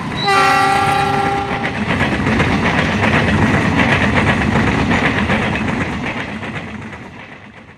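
A diesel locomotive's horn sounds one chord-like blast of about a second and a half as the train passes. Its wheels then clatter over the rail joints with a heavy rumble that fades away near the end.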